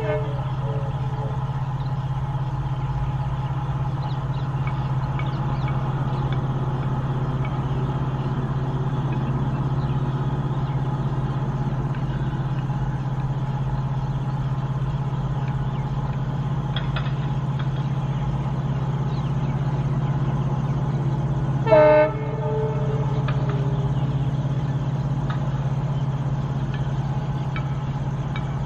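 WDP-4D diesel-electric locomotive's EMD two-stroke V16 engine working hard as it notches up to pull a train away, a steady deep drone. About three-quarters of the way through, one short, loud horn blast.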